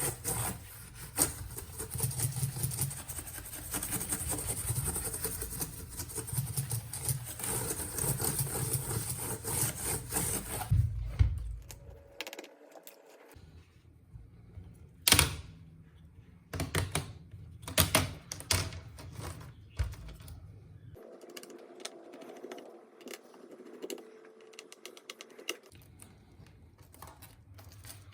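A steady whirring hiss for about the first eleven seconds, then scattered sharp clicks and knocks of hard plastic laptop parts being handled as the laptop's screen is taken apart.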